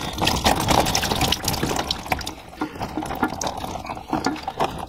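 The last water in a toilet tank draining out through the fill valve opening as its lock nut is undone underneath, splashing and trickling steadily.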